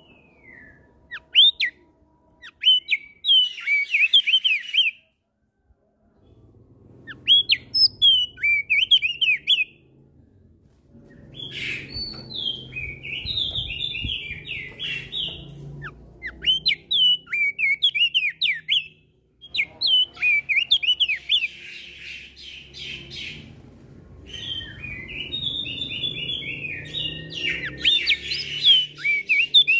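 Crested dark-eyes (opior jambul) and other small songbirds singing in bursts of rapid, sharply gliding chirps, the birds answering one another. The bouts are separated by short pauses.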